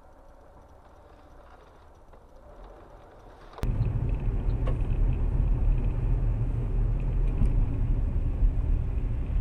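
Steady low rumble of a car driving, recorded by a dashcam inside the car. It comes in suddenly about three and a half seconds in, loud after a faint hum, with a few faint clicks over it.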